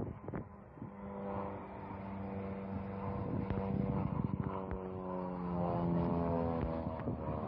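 Small propeller plane's engine droning steadily as the aircraft spins down, shifting slightly in pitch about six seconds in.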